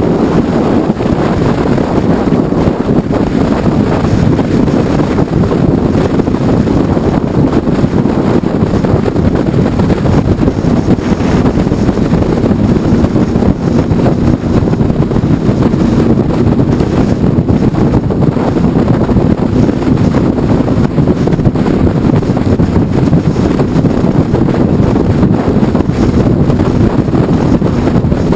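Steady wind rush over a helmet-mounted camera's microphone on a Honda VFR750 motorcycle cruising at road speed, with the bike's V4 engine humming underneath.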